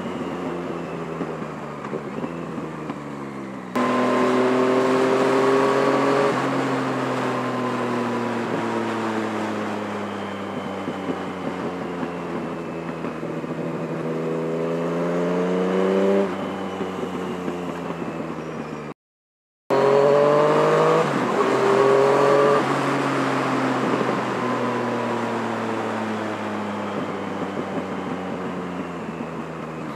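2016 Yamaha MT-09's inline-triple engine through an M4 decat exhaust, revving up and easing off repeatedly as the bike is ridden, heard from inside the rider's helmet. The pitch jumps up sharply twice, then falls away and climbs again, and the sound cuts out completely for under a second about two-thirds of the way through.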